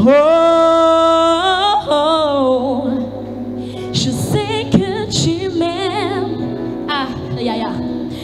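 A woman singing gospel without words: a long note held with vibrato, then quick melismatic runs up and down, over steady backing music.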